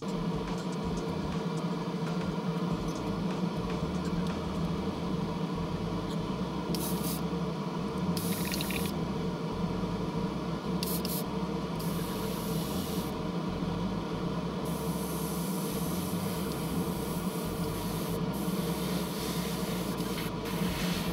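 Airbrush spraying paint in several short bursts of hiss through the middle stretch, over a steady machine hum from the painting setup.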